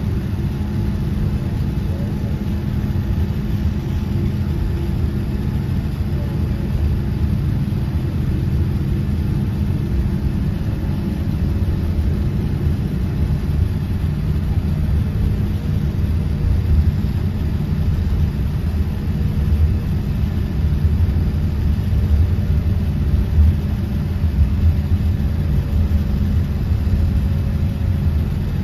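Cabin noise of a Boeing 787-10 taxiing: a steady low rumble and hum from the engines at idle, heard through the fuselage, with a faint steady whine above it.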